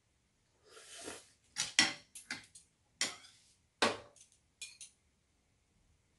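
Metal chopsticks and a ladle knocking and scraping against a frying pan and bowls as ramen noodles are served: a short scrape about a second in, then a run of about eight sharp clinks that stops about five seconds in.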